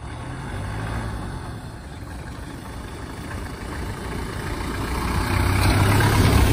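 A car driving, its engine rumble and road noise growing steadily louder, loudest near the end.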